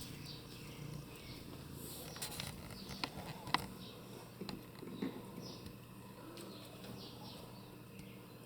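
Faint rustling with scattered light clicks and taps, a couple of sharper ticks about three seconds in.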